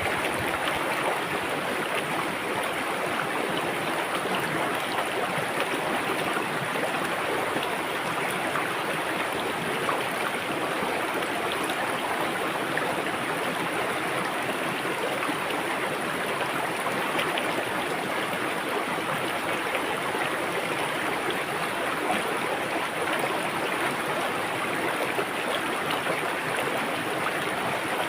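River water rushing and babbling over rocks, a steady, unbroken rush.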